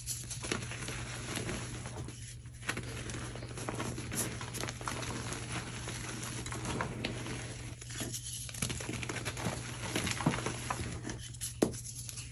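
Thick powdery gym chalk pies being crumbled and crushed by hand, dry chalk crunching and sifting through the fingers into a tray, with many small cracks and a few louder snaps of chunks breaking.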